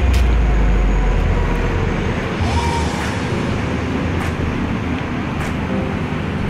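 Street traffic noise: a heavy low vehicle rumble, loudest at the start and fading after about two seconds, then a steady wash of road noise.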